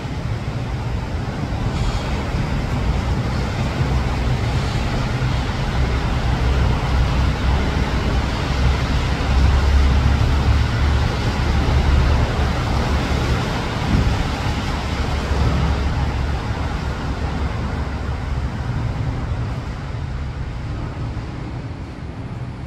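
Wind rumbling on a phone's microphone over a wash of city traffic noise. It swells toward the middle and eases off near the end.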